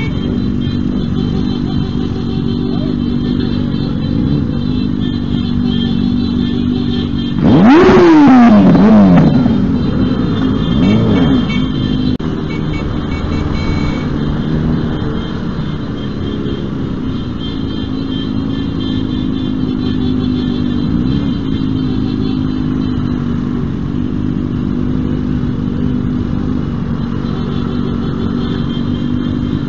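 Motorcycle engines running steadily in slow traffic. About eight seconds in there is a loud rev, its pitch climbing sharply and then falling away, and a smaller rev follows a couple of seconds later.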